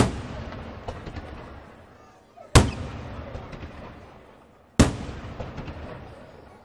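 Aerial firework shells bursting overhead: three sharp bangs about two seconds apart, each followed by a fading rumble with scattered crackles.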